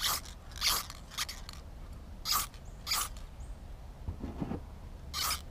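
Aerosol spray-paint can sprayed in short hissing blasts, about seven in quick succession with a pause near the middle.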